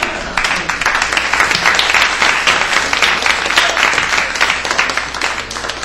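Audience applauding, a dense, steady clapping that thins out near the end.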